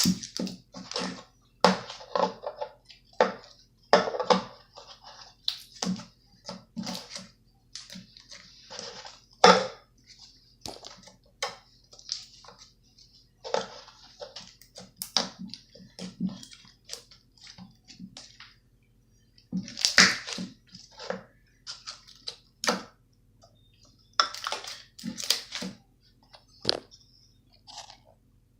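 Slime being squished and kneaded by hand: irregular wet clicks, pops and squelches, with a short lull about two-thirds of the way through.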